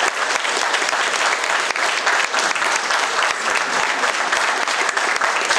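An audience applauding steadily with many hands clapping.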